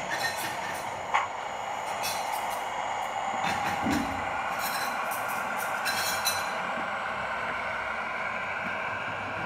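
Gauge 0 model diesel shunting locomotive running with a boxcar: a steady hum, with a few short metallic clicks in the first six seconds or so.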